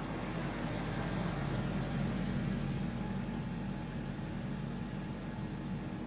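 Car engine running low and steady as an older sedan drives slowly and pulls to a stop, then keeps idling; the hum swells a little a couple of seconds in, then eases.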